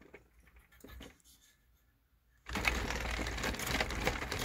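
3D-printed dual-cone pulse motor, its cone rotors spun up fast by hand, running with a dense rapid clatter that cuts in suddenly about two and a half seconds in; before that only a few faint clicks.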